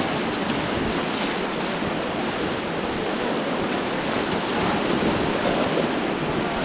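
Rushing river water in whitewater rapids, a steady loud rush of water with no let-up.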